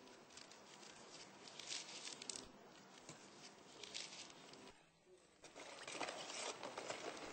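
Faint rustling and crinkling as hands put pandan leaves and other ingredients into a steel pot of sliced bananas, with a brief lull about five seconds in and louder rustling after it.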